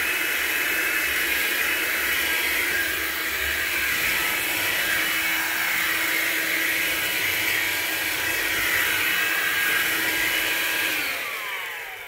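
Hoover Linx cordless stick vacuum running steadily as it is pushed over a hard floor. It is switched off about a second before the end, and its motor winds down with a falling whine.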